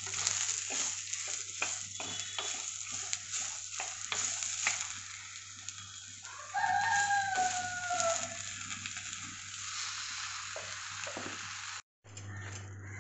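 Brinjal, onion and green chillies sizzling in oil in an earthen curry pot (chatti), stirred with a wooden spatula that scrapes against the pot. About six and a half seconds in, a rooster crows once: a long call of about two seconds, falling slightly in pitch and louder than the frying.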